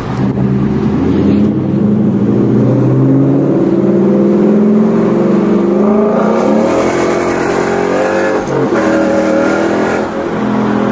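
Whipple-supercharged 2016 Mustang GT's 5.0 V8 with Corsa exhaust, heard from inside the cabin while accelerating hard through the gears of its manual gearbox. The engine note climbs, drops at an upshift about six and a half seconds in, then climbs again.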